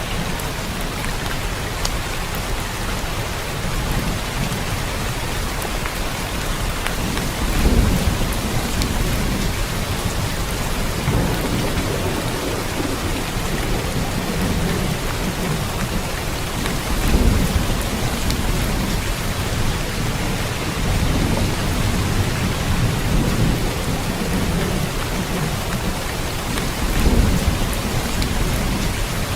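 Steady heavy rain falling, an even hiss, with low rolls of thunder rumbling up three times, about ten seconds apart.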